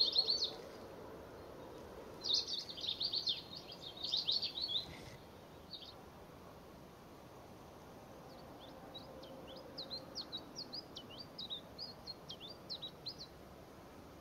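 Small songbirds chirping in short, high bursts: a quick flurry at the start, a denser run of notes from about two to five seconds in, and a longer string of thin twittering notes from about eight to thirteen seconds in.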